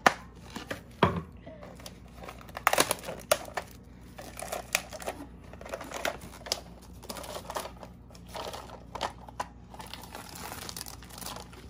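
Plastic bag and wrap crinkling and rustling as they are cut with scissors and pulled off a vegetable chopper's plastic parts, with scattered sharp clicks and knocks of the hard plastic parts being handled.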